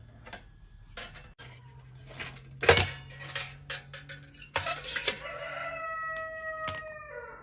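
A rooster crowing once: a long held call that drops in pitch at its end, about four and a half seconds in. Before it come scattered sharp knocks and clatters, the loudest about three seconds in.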